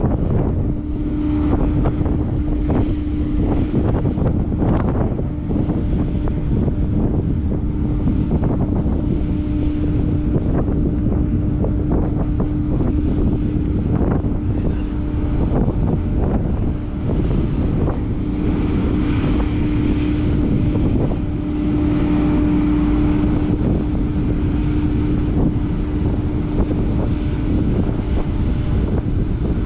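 The ro-ro ferry MV Earl Thorfinn's engines run with a steady hum as she manoeuvres in to berth. Heavy wind buffets the microphone over it.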